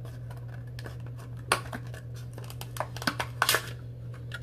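Cardboard and plastic eyelash packaging being handled and opened: a loud sharp click about a second and a half in, then a run of clicks and crinkles near the end, over a steady low hum.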